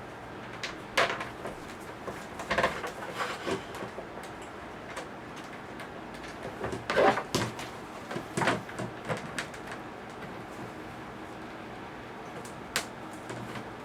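Parts of a plastic worm compost bin and its bolts and wing nuts being handled during assembly: scattered knocks and clicks, the loudest about seven seconds in.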